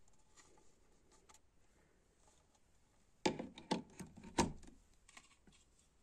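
Handling noise from a plastic motion-sensor alarm unit: a quick cluster of about five sharp clicks and knocks a little past halfway, with a few faint ticks around it, as the housing is set in place on the wall. The alarm itself does not sound.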